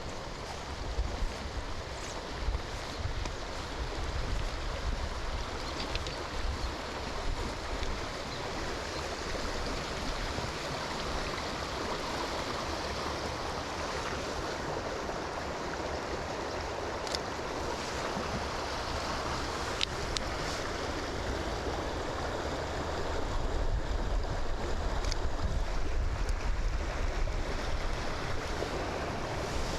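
Steady rushing of rain and wind through forest trees, with wind rumbling on the microphone and a few sharp ticks. It grows a little louder near the end.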